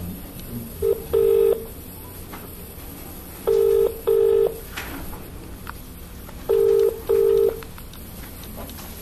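British telephone ringing tone (ringback) from a phone's loudspeaker as an outgoing call rings out unanswered: three double beeps, about three seconds apart.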